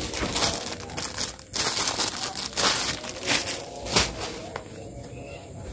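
Packaging crinkling and rustling in repeated bursts as it is handled and opened, with one sharper crackle about four seconds in; the rustling eases off near the end.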